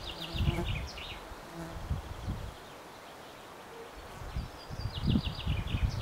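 A flying insect buzzing in short passes, with a songbird twice singing a quick descending run of short high notes, near the start and near the end. Low rustling underneath.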